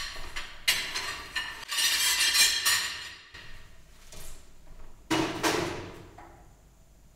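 Metal tools clattering and rattling in a workbench drawer as it is worked, for about two seconds, then a second sudden clatter about five seconds in as a drawer is pulled open.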